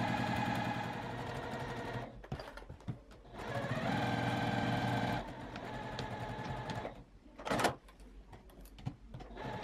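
Juki sewing machine stitching a seam in spurts: it runs steadily, stops briefly about two seconds in, runs again from about three and a half seconds, and stops about seven seconds in, with a few short sounds after.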